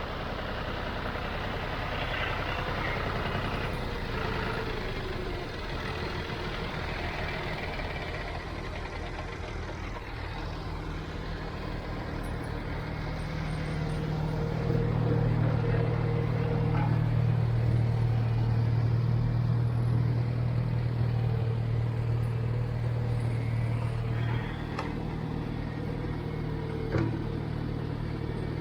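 An engine running steadily, louder from about halfway through, with a single sharp click near the end.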